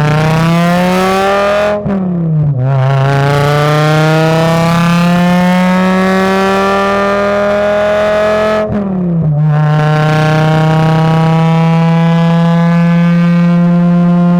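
MK5 Jetta racecar's 2.5-litre inline-five engine pulling hard through the gears: the revs climb, fall with an upshift about two seconds in, climb again for several seconds, fall with a second upshift, then hold steady.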